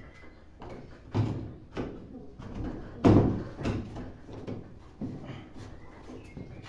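Irregular knocks and clunks as a door handle and a small sheet-metal patch are pressed and shifted against a van's steel door panel during a test fit. The loudest knock comes about three seconds in.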